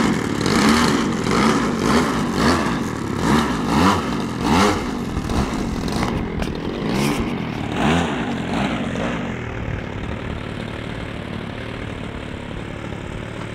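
Engine of a radio-controlled Piper J-3 Cub model airplane, its pitch rising and falling in short throttle surges about once a second as the plane taxis on grass, then settling to a steady idle about nine seconds in.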